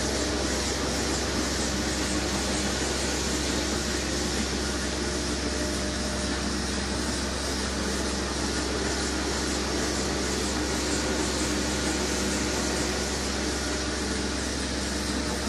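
Rotovac rotary hot-water extraction carpet cleaner running as it is worked across carpet, its vacuum pulling water out while the head spins. A steady rush of suction with a low, even motor hum.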